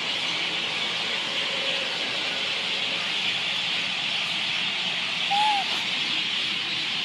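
An infant macaque gives one short coo call, rising then falling in pitch, about five seconds in, over a steady high hiss.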